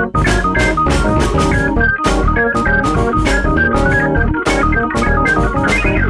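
Electronic keyboard playing a funk groove: quick organ-toned melody notes and chords over a steady drum beat and bass line.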